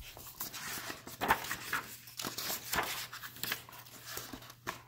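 Paper pages of a hardcover picture book being turned, with a series of short, irregular rustles and flicks.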